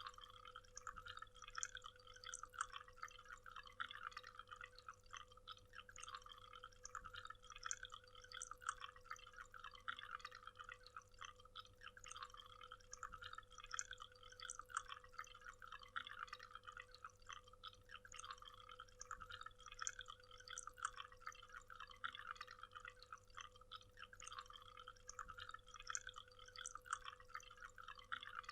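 Waterfall: a faint, steady rush of falling and splashing water with many small drips and splashes.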